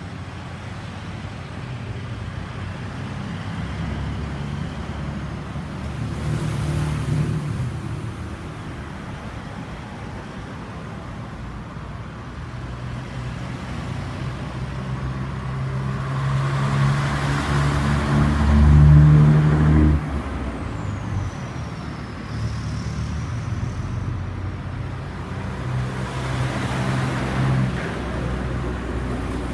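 Motor vehicles running and passing by: a heavy engine's hum builds to its loudest about two-thirds of the way through and then drops away sharply, with the whoosh of passing traffic.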